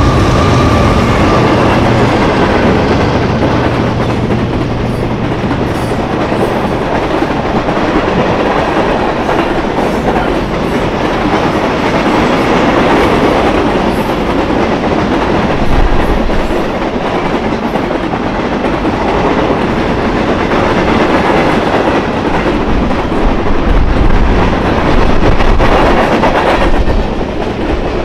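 Union Pacific freight train passing at close range. The diesel drone of the trailing locomotive fades in the first few seconds, then a long string of freight cars rolls by with a steady rumble and wheels clacking over the rail joints.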